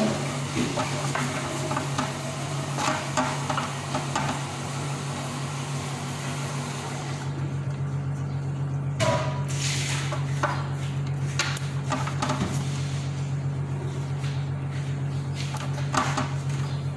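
Scissors snipping through crisp flatbread, with the bread crinkling and rustling as it is handled, over a steady low hum that stops near the end.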